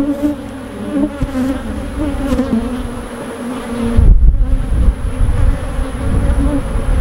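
Many honey bees buzzing around a frame of comb lifted from a hive, a steady wavering drone. A low rumble cuts in about four seconds in and is the loudest moment.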